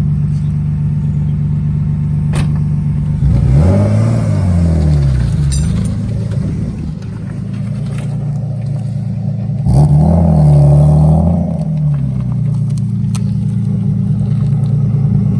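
BMW E36 engine idling steadily, revved twice, each rev rising and falling back to idle over about two seconds.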